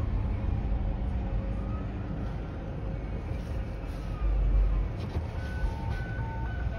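Steady low rumble of a stopped car's cabin, with a distant emergency-vehicle siren faintly wailing in falling and rising glides.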